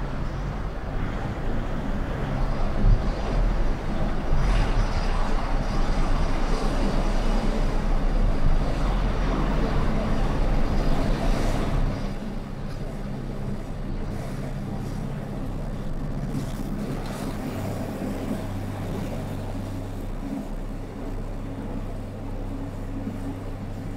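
Car driving on a city street: engine and tyre noise, which drops about halfway through as the car slows, leaving a steady low engine hum as it idles in a traffic queue.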